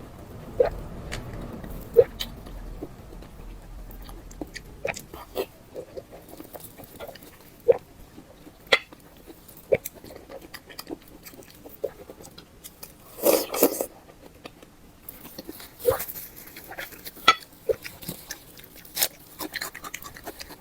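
Close-miked eating sounds: wet chewing, lip smacks and mouth clicks coming irregularly, with a longer, louder burst of mouth noise about thirteen seconds in.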